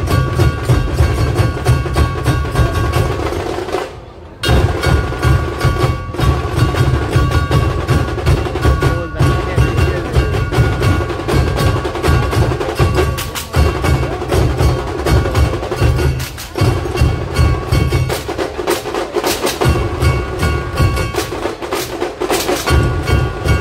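A dhol-tasha troupe beating large barrel-shaped dhol drums, laid on their sides and struck with wooden sticks, in a fast, driving rhythm with a steady ringing tone over the drumming. The drumming stops for a moment about four seconds in, then comes straight back.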